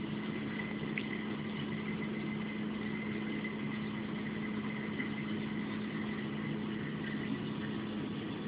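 Steady mechanical hum of a running machine at one unchanging pitch, with a faint high whine above it. It is the vibration that sets standing ripple patterns on the surface of a mug of coffee resting on the machine's metal top.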